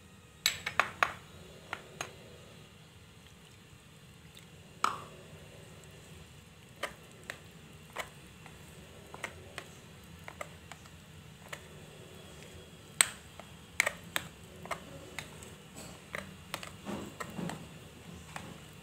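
Metal spoon clinking and scraping against a glass bowl while stirring a wet flour batter. It makes irregular sharp clicks about once a second, the loudest about thirteen seconds in.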